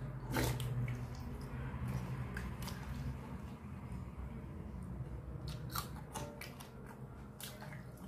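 Close-miked eating of soaked rice by hand: chewing with several crisp crunching clicks, the loudest about half a second in, among softer wet mouth sounds.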